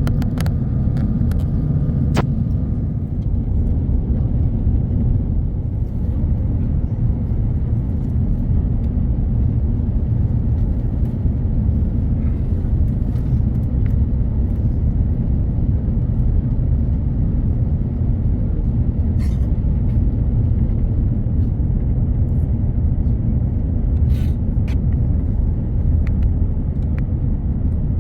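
Steady low rumble of an airliner cabin in flight, engine and airflow noise, with a few faint clicks.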